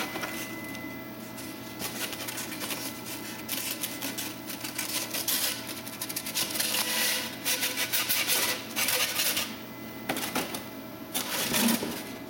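Pieces of polystyrene foam being handled and pulled apart, the cut foam rubbing and crackling against itself in quick runs of squeaky clicks, heaviest through the middle and again shortly before the end.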